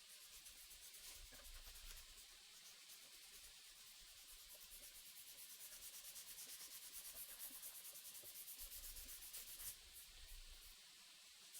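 Faint hand sanding of a knife handle: quick back-and-forth rubbing strokes that grow stronger toward the middle and break off sharply near the end.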